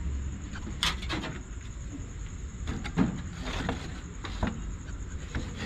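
Scattered wooden knocks and rattles from the slatted wooden door of an animal hutch being handled, the loudest knock about three seconds in, over a steady high insect trill.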